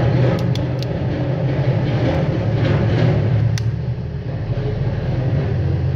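Steady low background rumble, with a few sharp light clicks as the plastic frame and parts of a Nokia 206 are pressed and snapped together by hand: three quick clicks under a second in, another at about three and a half seconds.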